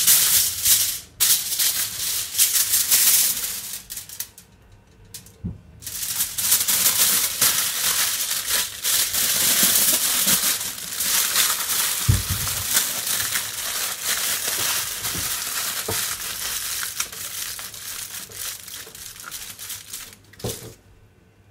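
Aluminium foil crinkling and crumpling as hands wrap and crimp a second layer of foil around a foil parcel, with a short pause about four seconds in and one dull knock near the middle.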